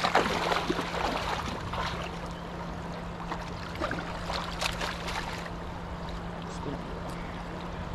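River water moving and splashing, with a few brief splashes near the start and about four and a half seconds in, over a steady low hum.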